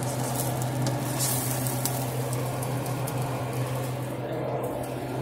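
Scrambled eggs sizzling and crackling in a frying pan, with a steady low hum underneath.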